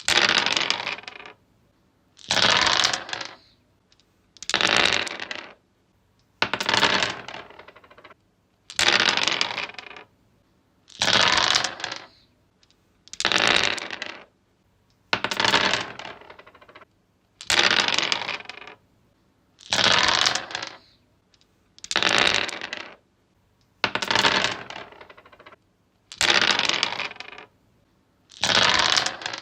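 Dice rolling and clattering across a wooden tree surface, one roll about every two seconds, about fourteen times. Each roll starts with a sharp clatter and rattles down over about a second before stopping.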